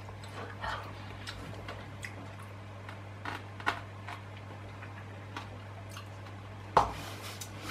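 Irregular light clicks and taps of a metal fork against a plastic Pot Pasta pot as food is scooped out, with a sharper knock near the end. A faint steady low hum runs underneath.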